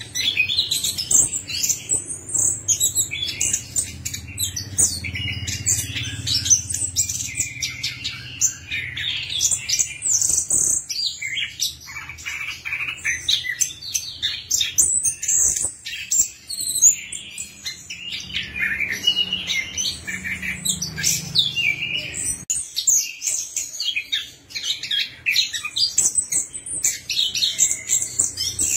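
Chestnut-capped thrush (anis kembang) singing a fast, continuous song of short, varied chirps and trills, thinning briefly about a third of the way in and again past the three-quarter mark.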